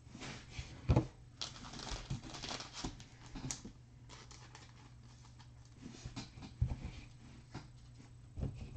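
Hands handling trading cards and a card-pack wrapper: paper rustling and crinkling with light clicks and taps, and a sharper tap about a second in. The rustling is densest in the first few seconds.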